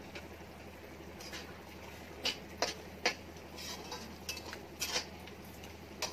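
A spatula stirring mutton liver chukka in a metal kadai: a run of sharp clinks and short scrapes against the pan, starting about two seconds in.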